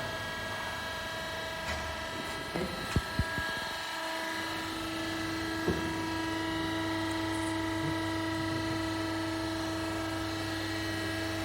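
Hydraulic busbar processing machine running: a steady motor hum made of several fixed tones. It grows stronger about four seconds in, with a few light clicks before that.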